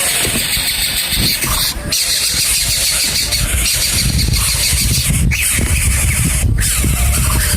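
Nestling birds begging in the nest: a continuous shrill, high-pitched chorus that breaks off briefly a few times, over a low rumble.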